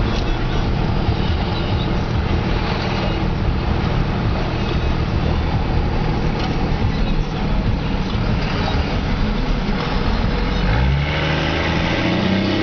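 Straight-piped 5.9-litre Cummins turbo-diesel inline-six of a 2001 Dodge Ram pickup, exhausting through stacks, running steadily while the truck is under way, heard from inside the cab. About eleven seconds in, its pitch rises as the truck accelerates.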